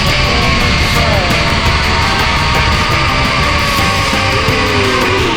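Loud hard-rock background music with a steady beat and gliding guitar lines.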